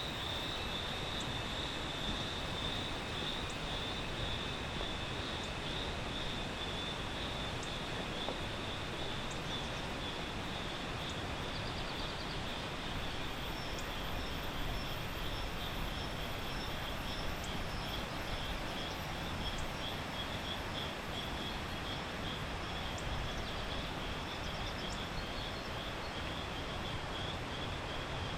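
Tropical rainforest ambience: a steady high insect drone over an even hiss, with scattered brief high chirps.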